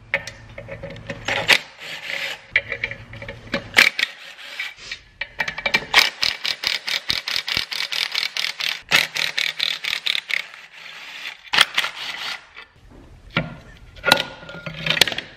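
Compact cordless impact driver run in several bursts, backing out the bolts of a clutch pressure plate. It spins freely at times and hammers rapidly for several seconds near the middle, breaking a bolt loose.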